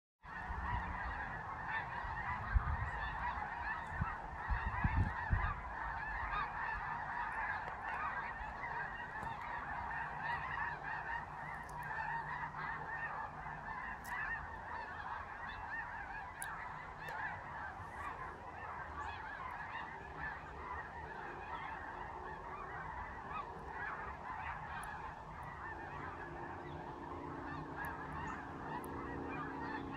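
A large migrating flock of snow geese passing overhead, many birds honking at once in a dense, unbroken chorus. A few low bumps on the microphone between about two and five seconds in.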